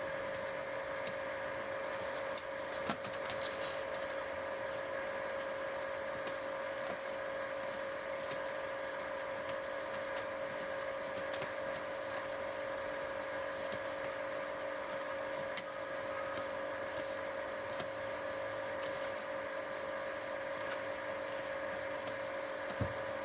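A steady hum of several unchanging tones, with a few faint clicks about three seconds in and again near the end.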